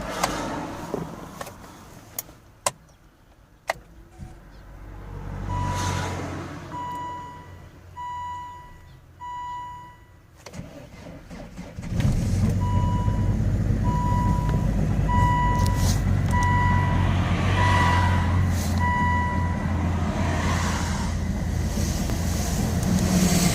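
Cold start of a Volvo S60 D5's five-cylinder diesel at about −10 °C after standing a week. After a few clicks, the dashboard warning chime beeps about once a second. The engine catches about halfway through and then idles steadily while the chime beeps several more times.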